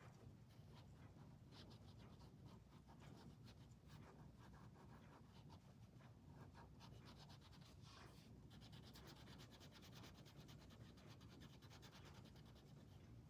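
Faint scratching of a wax crayon rubbed back and forth on colouring-book paper, in quick repeated strokes.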